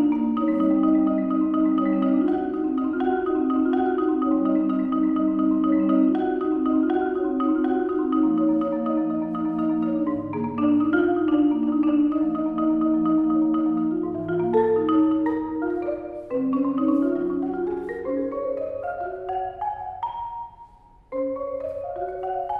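Solo concert marimba played with four yarn mallets: sustained rolled chords that shift in harmony, then quick rising runs of notes climbing into the upper register. The playing breaks off for a moment near the end, then the rising runs resume.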